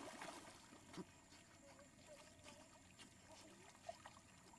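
Near silence, with faint water splashes near the start and about a second in from a dog swimming and lunging at fish.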